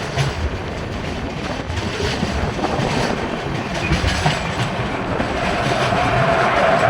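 Train running on the rails, its wheels clicking over the rail joints with a steady rumble. About five seconds in, a steady whine joins in and grows louder.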